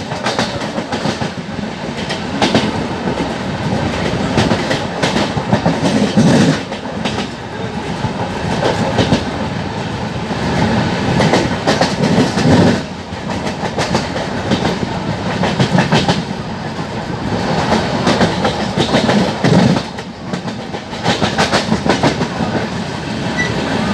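LHB passenger coaches of an express train running at high speed, heard from an open coach doorway: a continuous loud rush of wheels on rails, with repeated clatter as the wheels pass over rail joints and points, swelling louder every few seconds.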